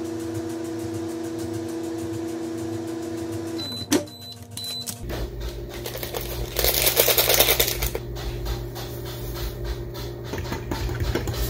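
Microwave oven running with a steady hum, which stops with a click about four seconds in, followed by three short high beeps. Then a coffee sachet is torn open and rustled, loudest a couple of seconds later, and its contents tipped into a ceramic mug.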